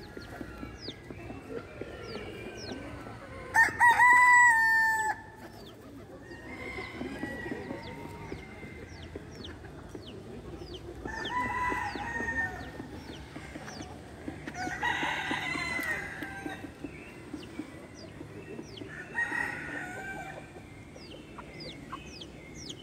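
A flock of domestic chickens: a rooster crows loudly about four seconds in, and several more calls from the flock follow later. Steady clucking runs underneath, with a constant run of short, high cheeps.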